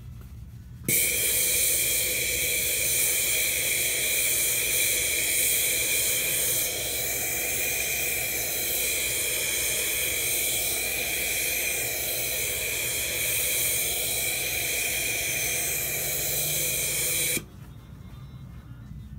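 Hat steamer blowing a steady jet of steam, a loud hiss that starts abruptly about a second in and cuts off suddenly near the end. The steam is softening a felt cowboy hat so it can be reblocked.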